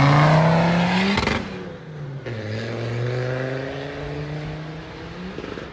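Land Rover Defender engine accelerating as it drives by, its note rising in pitch. About a second and a half in it cuts to a second, quieter pass with the engine note climbing again.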